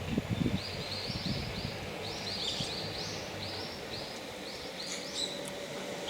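A bird calling: a run of short, high chirps repeated about three times a second, over a steady outdoor background.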